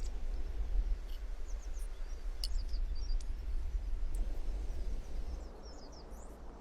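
Small birds chirping in short, high calls in two spells, over a steady low rumble.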